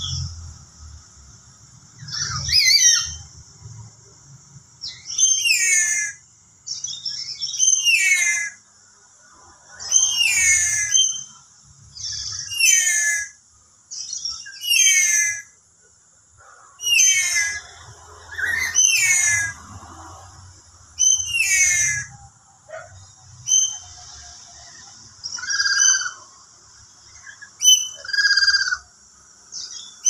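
Black-capped lory calling: shrill, whistled calls about every two seconds, each a quick run of steeply falling notes. A steady high-pitched hiss runs underneath.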